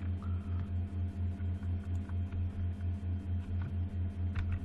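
Steady low electrical hum from the recording setup, pulsing evenly several times a second, with a few faint computer-keyboard keystrokes near the end.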